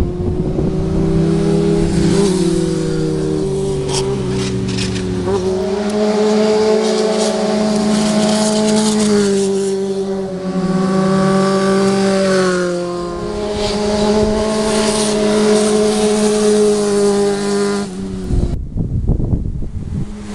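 Inline-four sport motorcycle engines running at high revs, their note stepping and bending up and down several times with throttle changes. The engine note cuts off abruptly about two seconds before the end, leaving a rough low rumble.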